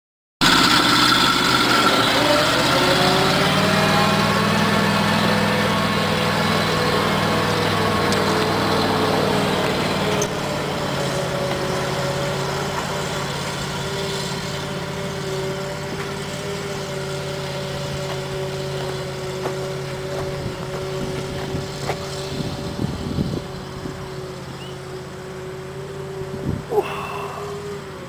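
Truck engine of a small fire tanker, a converted logging tanker, driving up a dirt road: its pitch rises over the first few seconds as it picks up speed, then holds steady while the sound slowly fades as the truck pulls away. A few short clicks near the end.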